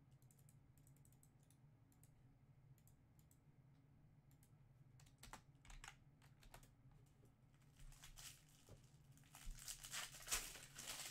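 Faint, irregular clicking of typing on a computer keyboard, sparse at first, then becoming denser and louder near the end with some light rustling.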